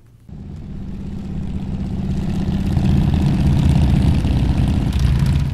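Motorcycle engine running steadily, growing louder over the first three seconds and then holding.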